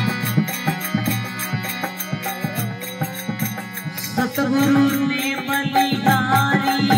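Harmonium playing a devotional bhajan tune over a steady, quick percussion beat, about four beats a second. A man's singing voice comes in about four seconds in, over the harmonium.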